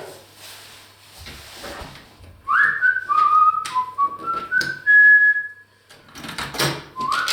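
A person whistling a short tune of several held notes, starting with an upward slide, about two and a half seconds in, then starting another phrase near the end. A few light knocks and a rustling burst fall between the phrases.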